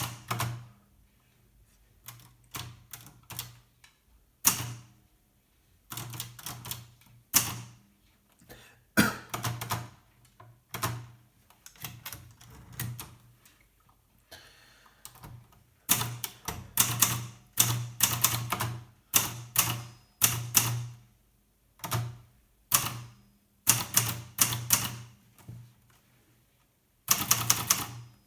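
Hermes Baby portable typewriter being typed on: bursts of key strikes with short pauses between them, and a quick dense run of strikes near the end.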